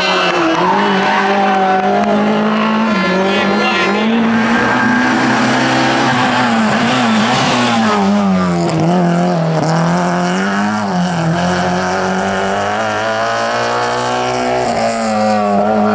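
Small Group A rally cars, a Renault Clio and then a Peugeot 106, driven flat out through tarmac bends. Their engines rev high, the pitch rising and falling over and over with gear changes and lifts for the corners.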